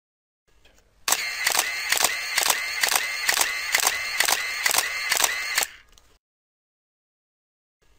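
Camera shutter firing in a continuous burst, about two and a half shots a second, with a whir between the clicks. It starts about a second in and stops after roughly four and a half seconds.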